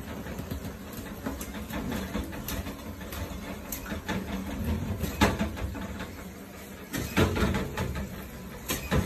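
Irregular knocks and scrapes on a plastic shower tray as a monitor lizard wrestles a fish it is swallowing, over a low steady hum. The loudest knock comes about five seconds in, with a cluster around seven seconds.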